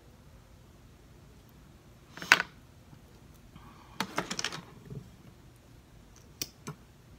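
Clicks and clatters of small makeup items being handled and set down on a hard surface: one loud clatter about two seconds in, a quick run of clicks around four seconds, and two sharp clicks near the end.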